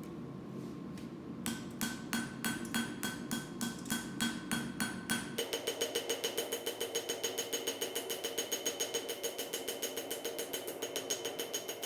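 Hammer blows on hot steel over an anvil, each strike ringing. The first run comes at about three blows a second; about halfway through it gives way to a quicker, steady run of about five blows a second with a different ring.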